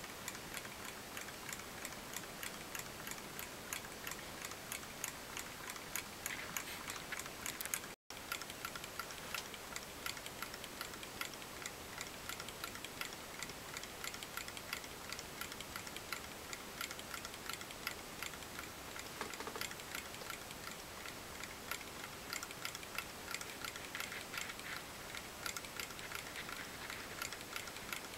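Small model Stirling hot-air engine running, its moving parts making a rapid, even ticking like a clock. The sound cuts out for an instant about eight seconds in.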